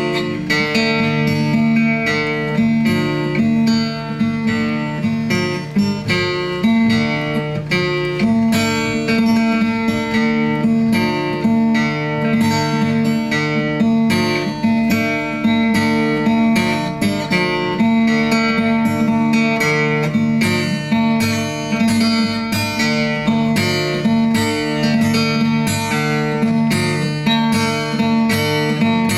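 Instrumental music: a quick run of plucked string notes over held low notes.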